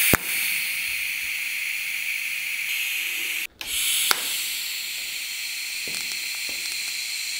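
TIG welding arc from an EWM Picotig 200 DC set to about 40 to 42 amps, a steady hiss while a lambda-sensor fitting is welded onto an exhaust bend. The arc strikes with a sharp click at the start, breaks off briefly about three and a half seconds in, and is struck again.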